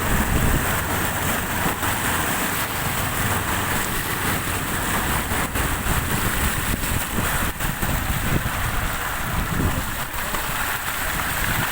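Heavy rain falling in a steady, dense hiss, with a low rumble underneath.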